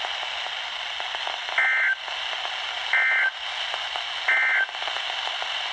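Three short bursts of Emergency Alert System SAME end-of-message data tones, each about a third of a second long and about 1.3 s apart, over steady radio receiver hiss. They signal the end of the NOAA Weather Radio Required Weekly Test message.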